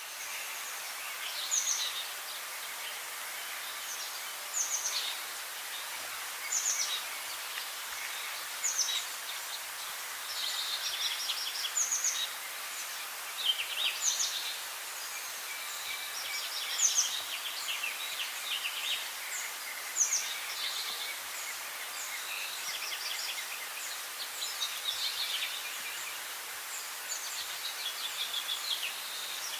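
A songbird singing short, high phrases, each a quick falling note followed by a rapid trill, repeated about every two seconds over a steady background hiss.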